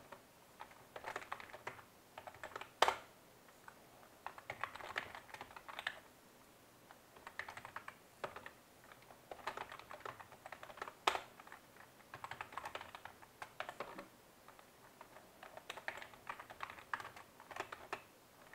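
Typing on a computer keyboard: bursts of rapid keystrokes with short pauses between them, and a single louder key strike about three seconds in and again about eleven seconds in.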